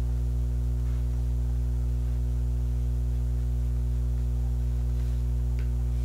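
Loud, steady electrical mains hum: a low buzz with a stack of overtones that does not change.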